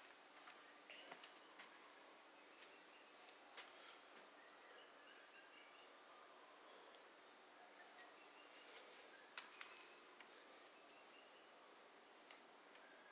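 Near silence: faint room tone, with a steady high-pitched whine, scattered faint chirps and a few soft clicks.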